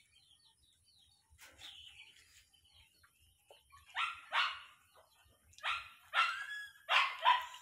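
A dog barking in quick doubles: six short barks in three pairs, starting about four seconds in.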